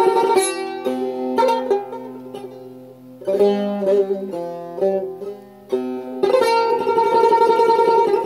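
Persian tar played solo. Separate plucked notes ring and fade, quieter in the middle, and from about six seconds in it changes to fast tremolo strokes.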